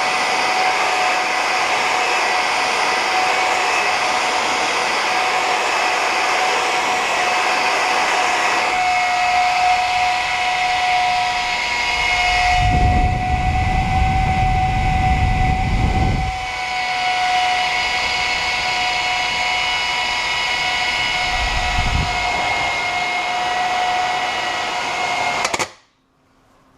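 High-power 12-volt Delta server fan running at full speed: a loud, steady rush of air with a high whine on top, and a deeper rumble for a few seconds midway. Near the end it stops abruptly, jammed.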